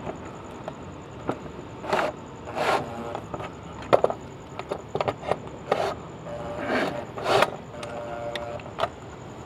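A socket from an impact socket set tightening the light's mounting fasteners, heard as a string of short scraping bursts with an occasional brief whir.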